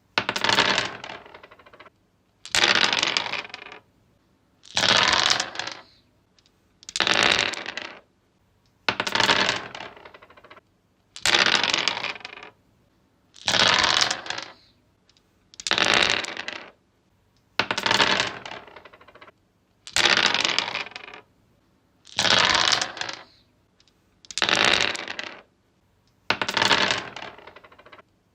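Dice rolled onto a wooden surface, clattering and tumbling to a stop, over and over about every two seconds. Each roll starts with a sharp hit and rattles out within about a second.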